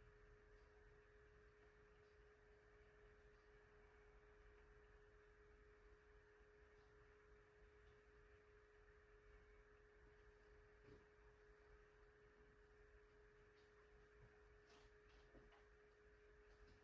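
Near silence: a faint steady tone, like an electrical hum, with faint hiss and a few tiny ticks.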